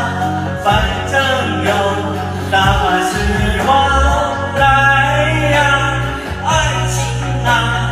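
A man singing karaoke into a microphone over a backing track.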